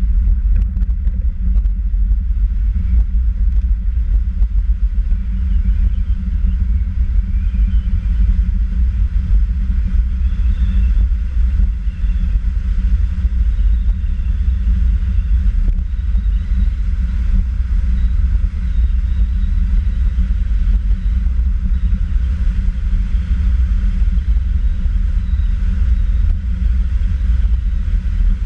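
Steady low rumble of a velomobile riding at speed: tyre noise on asphalt and wind over the fairing, with no engine.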